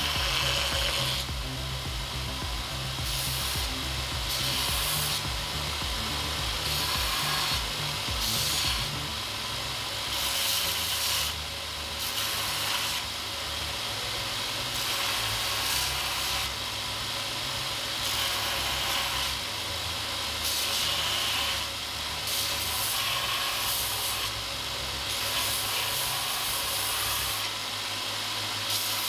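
A bench grinder converted into a 2x42 belt grinder runs steadily while a flat metal bar is pressed against the moving abrasive belt in repeated passes. Each pass brings up a hissing grind over the motor, about one pass every one to two seconds.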